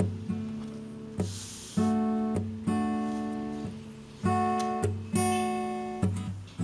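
Background music: an acoustic guitar strumming chords at an easy, steady pace.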